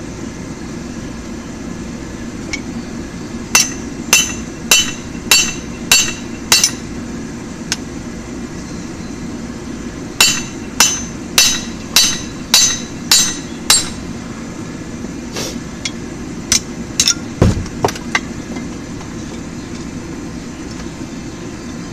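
Hand hammer blows on hot mild steel on an anvil while forging a tong blank: two runs of steady, evenly spaced ringing strikes, then a few lighter, scattered taps. A steady low hum runs underneath.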